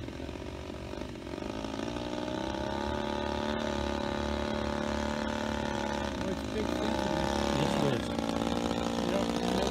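Engine of a full-size radio-controlled Demoiselle replica aircraft in flight, running steadily and growing louder as the plane comes closer overhead. Its pitch wavers briefly a little past the middle.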